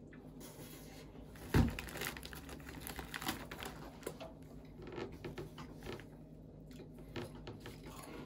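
Small handling noises: scattered clicks and crinkling, with one louder thump about a second and a half in.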